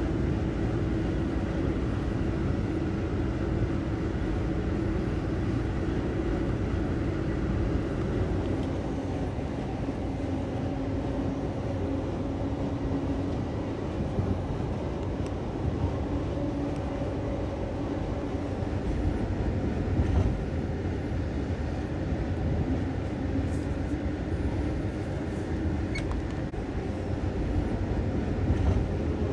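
Amtrak passenger coach running at speed, heard from inside: steady wheel-and-rail running noise with a faint hum, and a couple of brief louder jolts, one about two-thirds through and one near the end.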